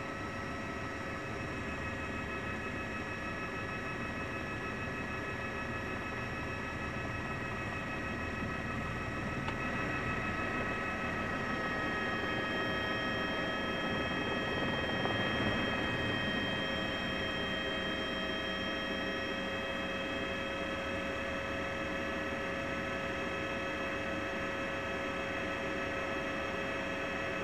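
A steady mechanical hum and whine: several unchanging high tones over a low rumble, swelling slightly through the middle. There are no firework bangs.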